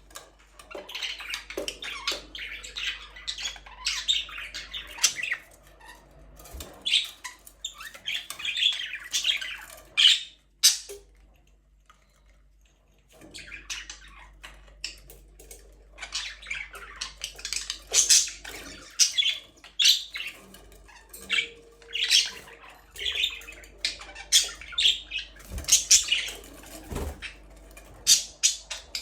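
A flock of budgerigars chattering, with many quick chirps and harsh squawks, falling quiet for about two seconds midway before starting up again.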